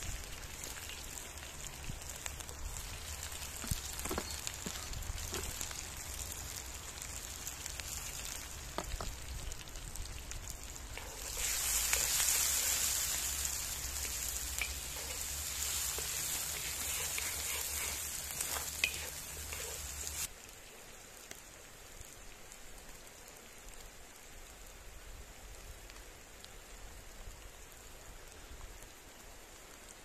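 Chopped onions sizzling and crackling in a wide steel pan over a wood fire, with scattered light knocks. The sizzle grows louder for several seconds while the onions are stirred with a wooden spatula, then drops abruptly to a fainter hiss about two-thirds of the way through.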